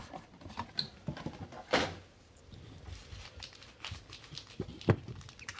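A trading card box and its packs being handled and opened: scattered light rustles and clicks, a brief louder rasp a little under two seconds in, and a sharp knock about five seconds in.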